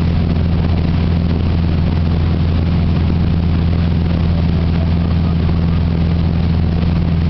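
A wakesurf boat's engine running steadily under way, an even low drone, with the rushing hiss of the churning wake behind the stern.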